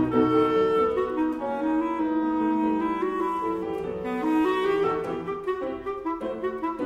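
Instrumental background music: a clarinet-type woodwind melody over held chords, the notes becoming shorter and quicker near the end.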